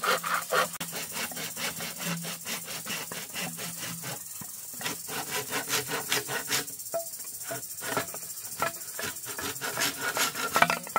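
Knife blades sawing and scraping across green bamboo poles. A quick, even run of rasping strokes, about four a second, goes for the first few seconds, then gives way to slower, scattered strokes and taps.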